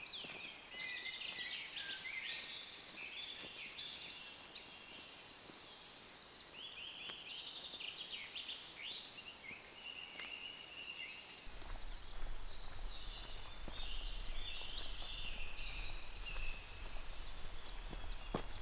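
Several songbirds singing at once, overlapping high trills and warbling phrases. A low steady rumble joins just past halfway.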